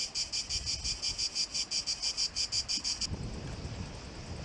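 Cicadas singing in rapid, even pulses, about five a second, that cut off abruptly about three seconds in. Wind rumble on the microphone follows.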